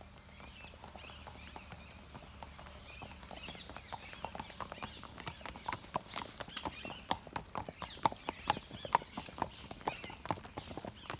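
Hooves of several horses walking on a dirt track, clip-clopping in an uneven overlapping rhythm that grows louder from about four seconds in as they pass close by.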